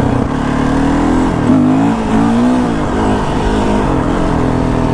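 Yamaha YZ450 dirt bike's single-cylinder four-stroke engine revving up and down several times under throttle as the front wheel is lifted into a wheelie.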